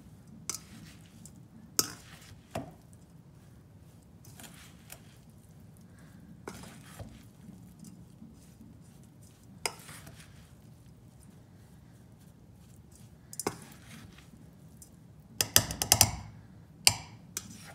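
Metal fork clinking and scraping against a stainless steel bowl while breaking up and mixing damp grow mix. Scattered single clinks, then a quick run of louder clinks near the end.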